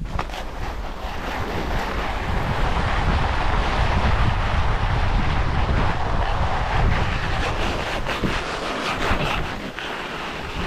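Rushing, scraping hiss of a climber glissading seated down a steep snow couloir, with wind buffeting the microphone. It swells about midway through and eases toward the end.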